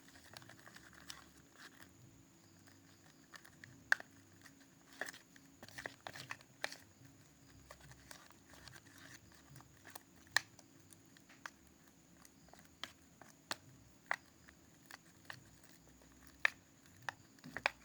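Sticky homemade slime being stirred in a container, giving irregular faint sticky pops and sharp clicks, a few each second. It is a stage where the slime is still sticky and fresh activator is being worked in.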